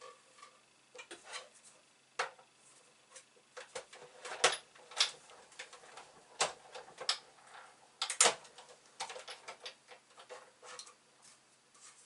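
Irregular clicks and knocks of the cutting plates and metal die of a Big Shot die-cutting machine being handled and stacked, the loudest about four and eight seconds in.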